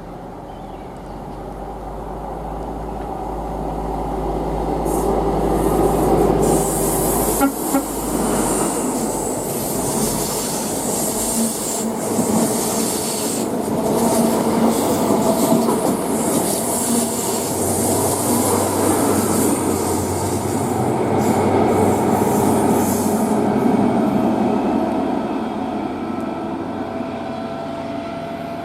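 A train passing close by: it grows louder over the first six seconds or so, stays loud for about eighteen seconds as it goes past, and fades away near the end.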